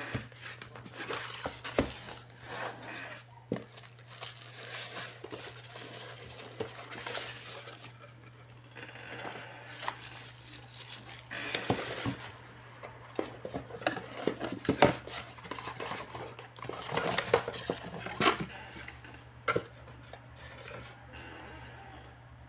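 Unboxing handling noise: a cardboard box being opened and shifted and plastic-wrapped parts rustling as they are lifted out and set down on a desk, in irregular scrapes, taps and crinkles that are busiest in the middle.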